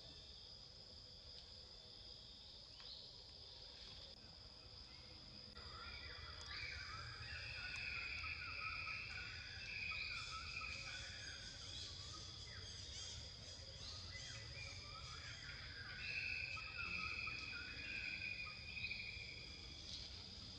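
Outdoor ambience: insects drone steadily at a high pitch, and bursts of chirping calls join in about six seconds in, swelling twice.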